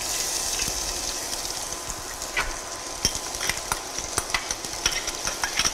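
Chopped onion sizzling in hot oil in a stainless steel pot. The sizzle starts suddenly as the onion hits the oil and runs on as a steady high hiss with scattered crackles and pops.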